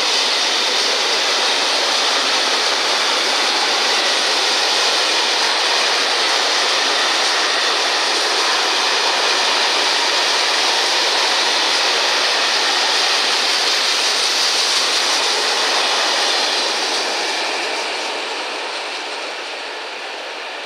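Freight train of tank wagons passing at speed: a steady rushing noise of wheels rolling on the rails, which fades away over the last few seconds as the end of the train goes by.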